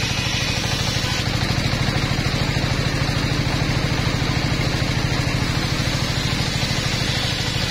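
Engine-driven mobile circular sawmill running with its blade spinning, the engine giving a steady, fast low throb under a constant hiss.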